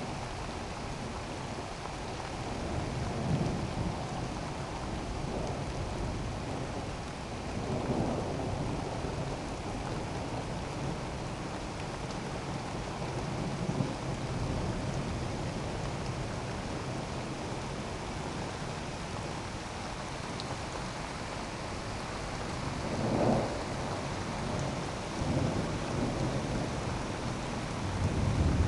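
Steady rain falling through a thunderstorm, with several rolls of thunder swelling and fading, and a louder rumble building near the end.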